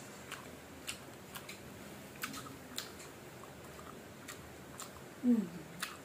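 Crisp crunching and chewing of raw, unripe green mango slices, a sharp crunch every half second or so. About five seconds in, a short closed-mouth hum that falls in pitch is the loudest sound.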